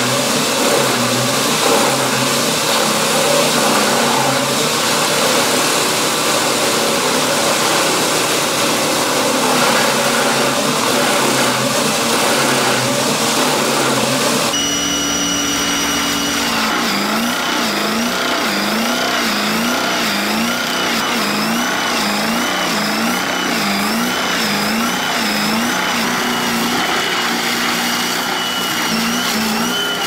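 Heavy industrial wood shredders chewing logs: an engine running under load while the rotor crushes and splinters the wood. After a change about halfway, a steadier machine note rises and falls in pitch about once a second as the cutting rotor bites into a big log.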